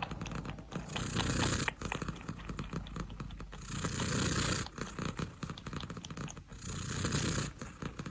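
Domestic cat purring close up: a steady fast rattle that swells three times with its breaths.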